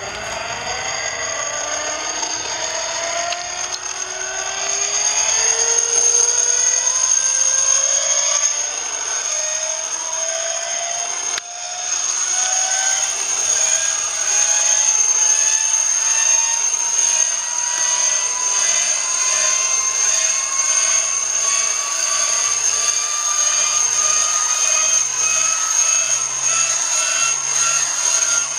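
Hand-cranked inertia starter of the type used to start the Zero fighter's engine, being wound up. Its flywheel whine rises steadily in pitch as it spins faster, with a steady high whistle above it.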